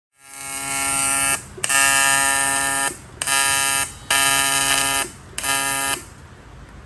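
A loud alarm-like pitched tone sounding in five blasts of about a second each, with short gaps between, stopping about six seconds in.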